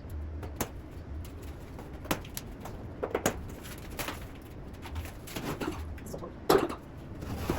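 Scattered clicks, knocks and rustles of packaging being handled as the cardboard box of a washing machine is opened, the loudest knock about six and a half seconds in.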